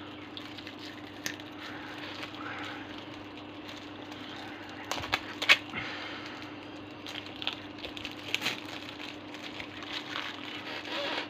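Trading cards being handled and sorted: light rustling with scattered sharp clicks and snaps, the loudest about five and a half seconds in, over a steady low hum.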